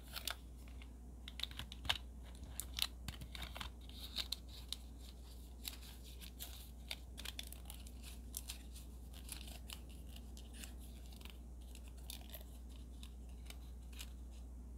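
A small square of paper being creased and folded by hand into a miniature toy tray: light crinkling with many scattered small clicks and taps.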